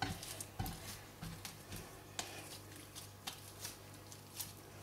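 Hands kneading soft cold porcelain dough of glue and cornstarch on a cream-greased glass board: faint, irregular squishes and sticky clicks as the still slightly tacky paste pulls off the palms.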